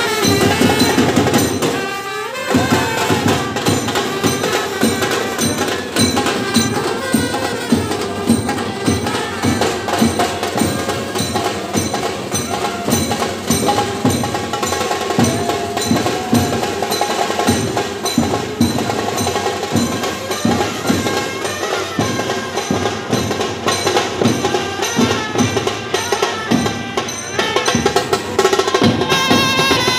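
Procession brass band playing live: trumpet and saxophone over steady, loud drumming, with a short drop in the music just after two seconds in.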